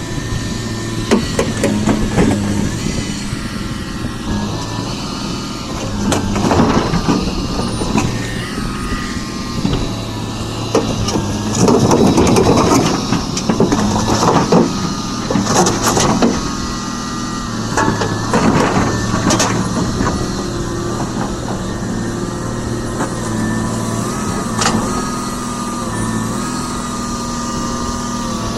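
Volvo EC290BLC excavator's diesel engine running steadily, with a higher whine that shifts in pitch as the machine works. Several noisy, clattering stretches break in through the middle.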